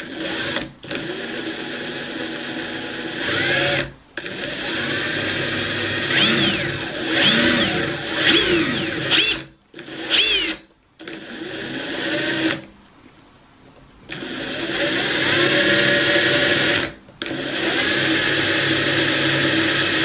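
Makita 18V cordless impact drivers (TD170D and TD171D) spinning their bits freely with no load, a steady motor whine started and stopped several times. In the middle the pitch rises and falls repeatedly as the triggers are eased on and off.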